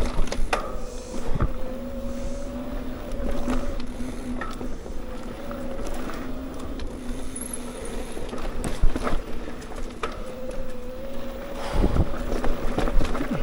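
Mountain bike being ridden along a dirt trail: tyres rumbling over the ground and wind on the microphone, with frequent clicks and knocks as the bike rattles over bumps. A steady buzzing tone, wavering slightly in pitch, runs under it much of the time.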